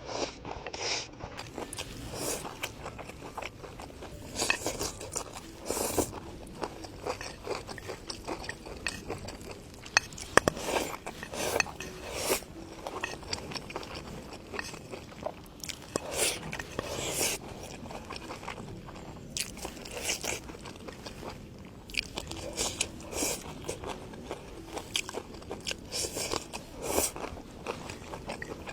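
A person eating close to the microphone: irregular crunchy bites and chewing of stir-fried vegetable shoots, with a sharp crunch every second or two.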